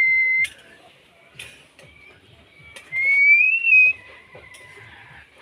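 Clear whistled notes: a long steady whistle that cuts off about half a second in, then a second whistle about three seconds in that rises in pitch and holds briefly, with a few short clicks in between.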